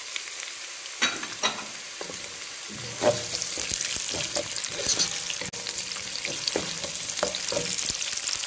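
Finely chopped green pepper and sliced garlic sizzling as they fry in a nonstick pan, with a wooden slotted spatula knocking and scraping against the pan as it stirs them, the sharpest knocks about one, one and a half and three seconds in.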